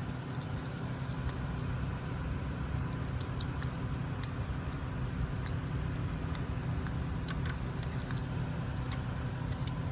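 Steady low mechanical hum with a few short, sharp clicks scattered through it, the clicks from the buttons of small plastic gate remote controls being pressed.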